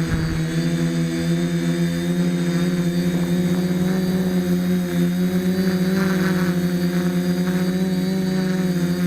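DJI F450 FlameWheel quadcopter's four motors and propellers humming steadily in flight, the pitch wavering slightly as the throttle shifts.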